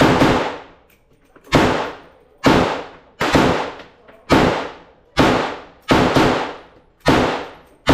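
Gunshots in slow, steady single fire: about nine shots, roughly one a second, each sharp crack trailing off in echo.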